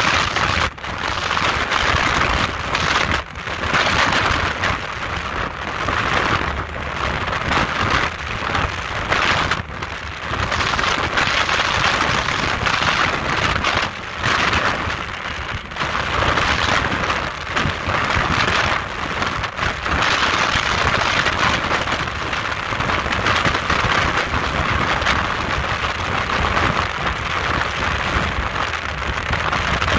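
Speedboat running flat out at about 60 mph: a loud, steady rush of wind and water noise, with wind buffeting the microphone in the open cockpit. The rush dips briefly a few times.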